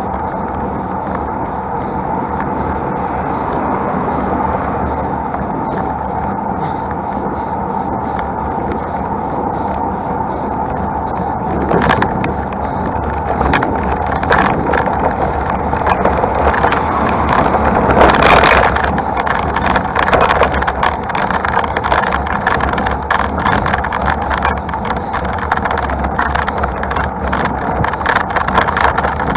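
Steady rush of riding noise picked up by a camera on a road bike climbing a mountain road, mixed with passing motor traffic. From about halfway through it turns rattly with many small clicks, and a louder rush comes about 18 seconds in.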